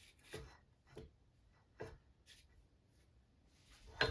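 Faint short rubs and taps of metal parts being handled as an Olympic barbell sleeve is turned back on its shaft, about one a second, then a louder clink just before the end.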